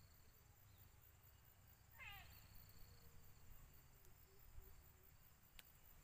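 A faint, short bird call about two seconds in, falling quickly from high to low, over a thin steady high tone that stops about a second later.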